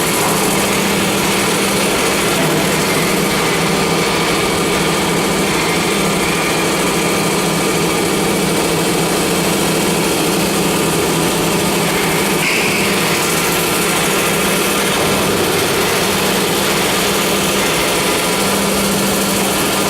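CNC tube-drilling machine running with a steady mechanical hum. A lower tone in the hum cuts in and out a few times.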